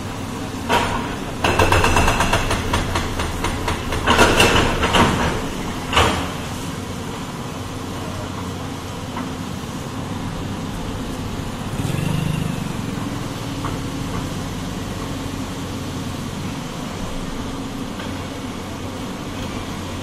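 Tracked excavator's diesel engine running steadily while it breaks down a concrete building frame. For the first six seconds or so, concrete and debris crash and clatter down in a string of irregular impacts; after that the engine runs on alone, swelling briefly near the middle.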